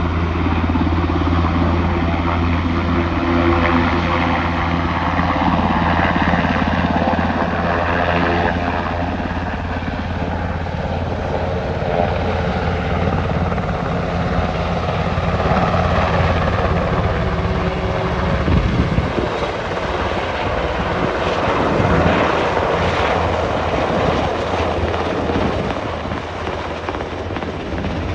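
Sikorsky S-92A helicopter's twin turbines and rotors running, a loud steady low drone with a turbine whine above it. About eighteen seconds in the even drone turns rougher, with a fast pulsing beat from the rotor blades.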